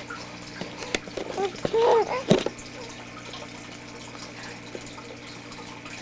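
Six-week-old baby cooing once, a short vocal sound that rises and falls about two seconds in, with a couple of small clicks around it, over a steady hiss and low hum.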